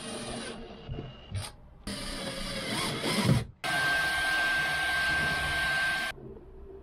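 A power tool running in two short bursts that start and stop abruptly, the second with a steady high whine, as when holes are drilled for mounting a bracket.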